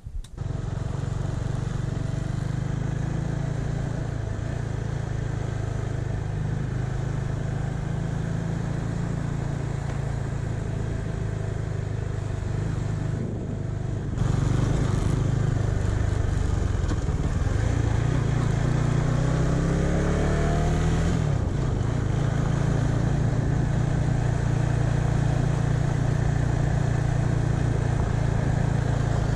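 KTM 390 Adventure's single-cylinder engine running under way. About 17 seconds in it revs up with a rising pitch, drops suddenly at a gear change, and then settles back to a steady run.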